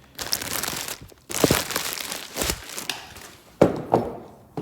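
Plastic wrapping crinkling and rustling in two long stretches as a new front wheel hub bearing assembly is handled, then two sharp knocks near the end.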